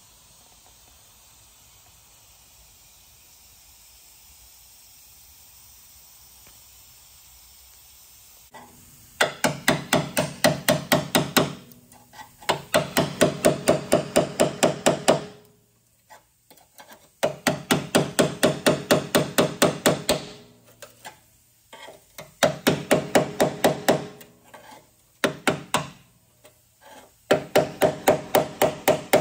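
Hand hammer striking a chisel held against a car's steel body panel, in quick runs of about five or six blows a second, each blow ringing in the sheet metal. The runs last two to three seconds, with short pauses between them, and begin about nine seconds in after a stretch of faint steady hiss.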